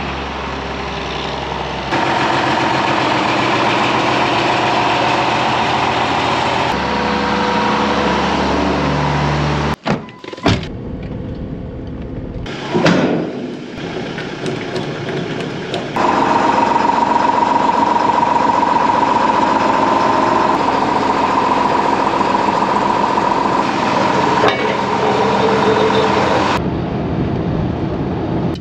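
Motor vehicle sounds in a run of short edited clips: engine running, a few sharp knocks partway through, then a longer stretch of steady engine and road noise inside a ute's cabin while driving.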